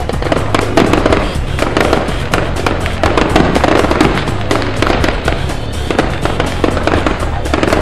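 Fireworks going off in a rapid, dense crackle of many sharp reports, with steady bass-heavy music underneath.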